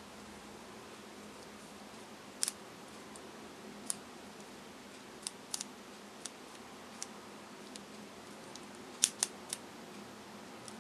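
Small, sharp clicks from an Olympus Zuiko 50mm f/1.8 lens being handled and twisted on an Olympus OM20's lens mount. They come singly at irregular intervals, with the loudest cluster of two or three quick clicks near the end.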